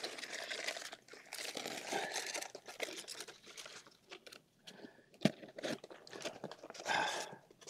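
Irregular crunching and crinkling as a crashed foam RC plane is picked up and handled in dry grass, with footsteps through the dry grass.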